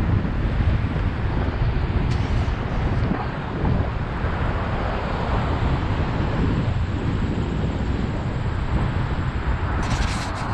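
Steady low rumble of wind buffeting the microphone on a moving scooter ride, with road traffic running underneath. A brief hiss comes near the end.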